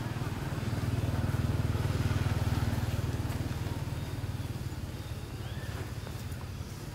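A motor vehicle's engine running, a low pulsing rumble that grows louder to a peak about two seconds in and then fades.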